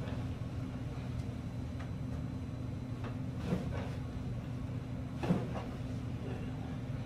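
Two short pops during a chiropractic leg adjustment: one about three and a half seconds in and a louder one a little after five seconds, over a steady low hum.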